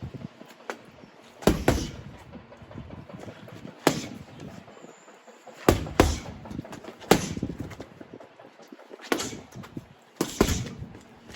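Boxing gloves striking a heavy punch bag: single thuds and quick pairs of punches, irregularly spaced a second or two apart.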